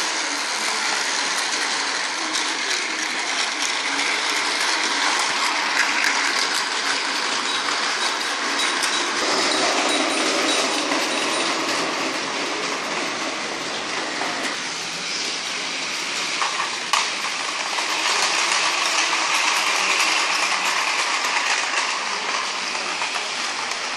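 Motorized toy train running on blue plastic track: a steady whirring rattle from its small motor and wheels, with a couple of short clicks.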